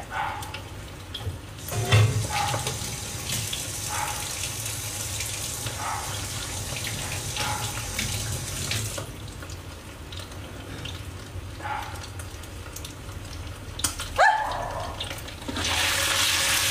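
A kitchen tap runs into a sink for several seconds, then stops. Near the end there is a clatter, and food starts sizzling in a wok as it is stirred. A dog barks now and then in the background.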